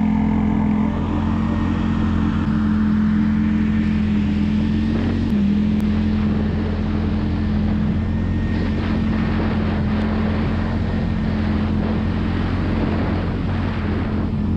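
Polaris ATV engine running steadily under way, with an even drone and a slight shift in pitch about five seconds in.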